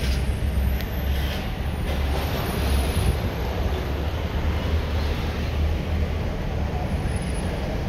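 Steady low rumble of a car heard from inside its cabin as it drives slowly through heavy traffic.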